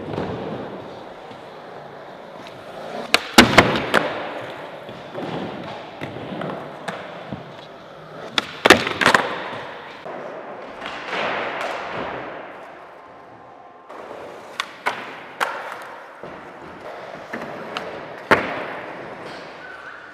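Skateboard wheels rolling over concrete and wooden ramps, with a steady rolling rumble. Sharp clacks of the board popping and landing come in clusters about three seconds in, around eight and a half seconds, around fifteen seconds, and once more near eighteen seconds.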